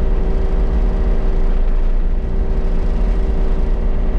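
Kubota KX033-4 mini excavator's three-cylinder diesel running at high throttle, heard from inside the cab. The engine note holds steady with no sag, during a road test for a power loss after a fuel filter change.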